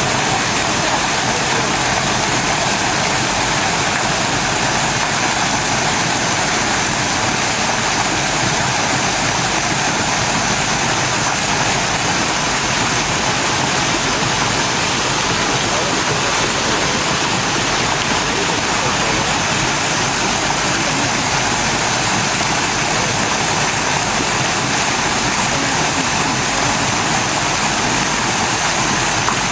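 Water falling and splashing steadily from a garden wall fountain, thin streams running down a mossy rock face.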